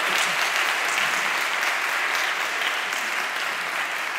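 Audience applauding steadily, slowly dying down.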